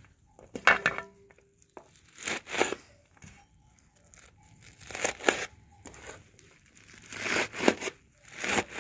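Kitchen knife chopping through a heap of spinach leaves on a metal tray, with the hand gathering the wet leaves together: five short bursts of quick, crunchy cuts, a couple of seconds apart.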